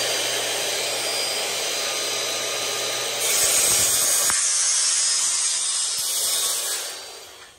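Handheld circular saw cutting through a wooden board, the blade running at speed. The cut gets louder about three seconds in, and the sound fades out near the end.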